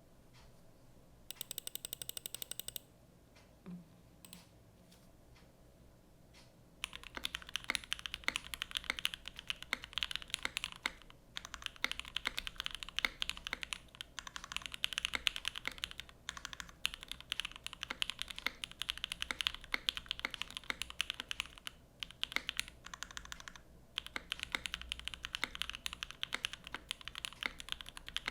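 Typing on a PC Alas60 mechanical keyboard with lubed Gateron Oil King linear switches, GMK Olivia keycaps and an aluminium plate on an O-ring mount: a dense run of keystroke clacks that starts about seven seconds in, broken by a few short pauses. Before the typing, a steady buzzing tone lasts about a second and a half.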